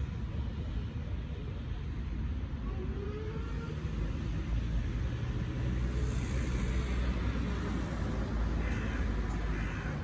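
Low, steady rumble of thunder rolling in the distance, swelling in the middle, with a flock of crows cawing near the end.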